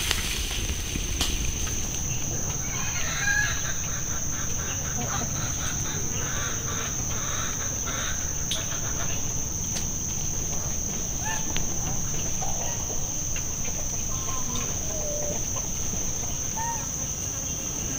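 Farmyard ambience: a steady high insect drone, with chickens clucking now and then.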